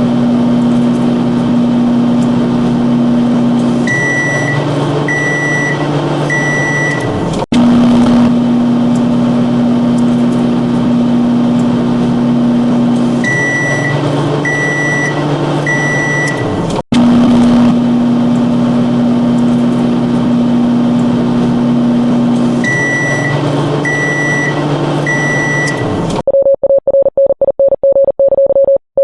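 Synthesized emergency-alert alarm tones playing three times over. Each time a steady low tone holds for about four seconds, then gives way to two lower tones sounding together under three short high beeps. Near the end a fast on-off pulsing mid-pitched tone begins.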